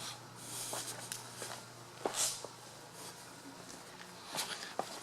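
Footsteps with scattered scuffs and clicks over a low steady hum.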